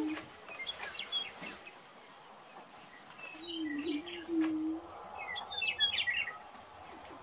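Male prairie-chicken booming: one low moaning call of about a second and a half near the middle, with the end of another right at the start. Scattered short high chirping notes sound around them.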